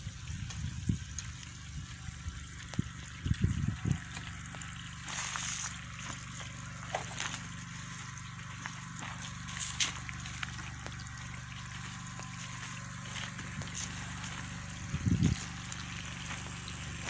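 A generator engine runs steadily as a low hum under a faint hiss. Two short low thumps come a few seconds in and near the end.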